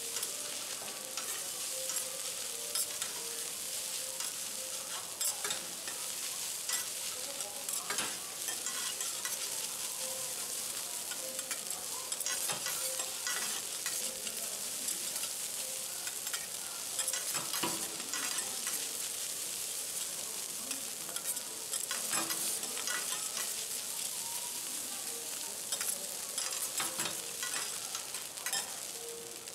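Garlic fried rice with egg sizzling on a steel teppanyaki griddle while metal spatulas chop, scrape and turn it, with frequent sharp clicks of the spatula edges on the hot plate over a steady sizzle.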